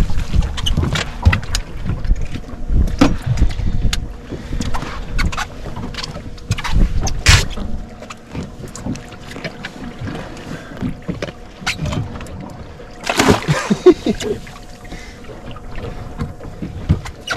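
Small fishing boat on the water with wind buffeting the microphone and water slapping at the hull, with scattered knocks and clatter on board and a louder burst of it near the end.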